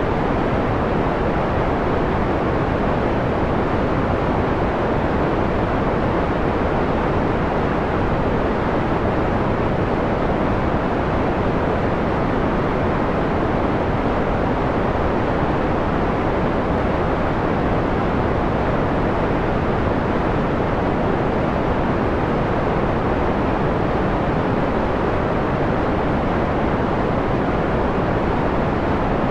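Steady white noise filtered to a mellow, dull hiss with most of its treble cut away, at the mellow end of a bright-to-mellow dimming. It holds even and unchanging throughout.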